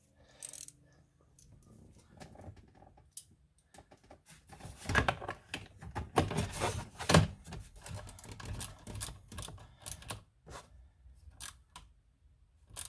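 A small socket ratchet on a short extension clicking and rattling as a 5.5 mm screw of the ignition switch is run in, in bursts of quick irregular clicks that are loudest in the middle stretch.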